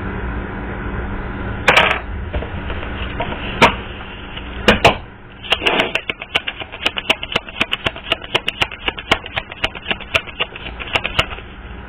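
A run of sharp, irregular clicks and taps, about three or four a second, over a steady low hum, with two brief rustling bursts before the clicking starts.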